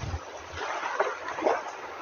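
Sea waves washing in, with wind rumbling on the microphone; a quieter spell between waves, broken by two short louder surges about a second in and again half a second later.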